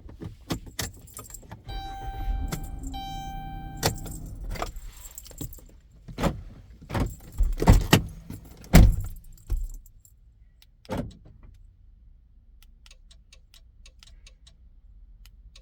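Car keys and remote handled inside a minivan, with a steady electronic chime tone about two seconds in that breaks briefly and stops, then a series of sharp clicks and knocks. Faint rapid ticking near the end.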